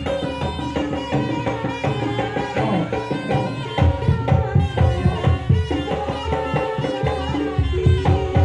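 Traditional Javanese jaranan (kuda lumping) ensemble music played loud: hand drums beat a dense rhythm under a held, reedy melody line. The drum strokes grow heavier about halfway through.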